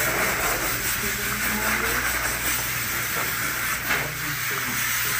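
Steady hiss of rushing air with a low steady hum underneath, even in level throughout.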